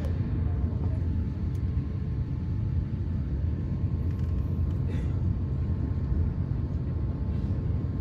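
Jet airliner taxiing, heard from inside the passenger cabin: a steady low rumble of the engines at idle and the wheels rolling on the taxiway, with a faint steady whine above it.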